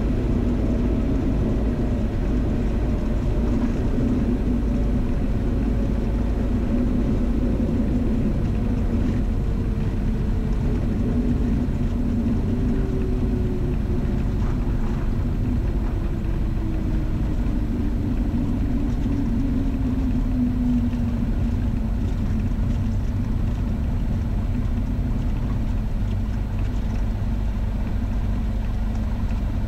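Cessna 172's engine and propeller idling during the landing rollout, heard from inside the cabin as a steady low rumble. A faint tone slowly falls in pitch over the first twenty or so seconds as the plane slows.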